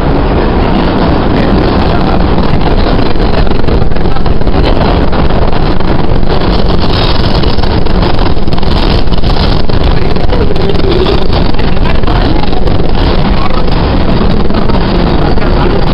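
MBTA Red Line subway train running through a dark tunnel, heard from inside the car: a loud, steady noise of wheels on rails and motors, heaviest in the low end.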